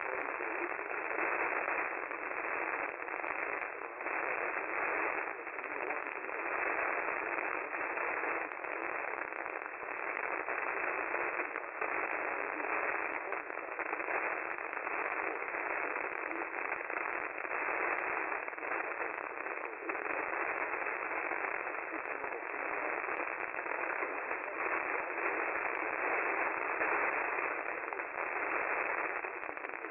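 Radio static: a steady, thin hiss over a narrow radio band, peppered with frequent small crackles and pops.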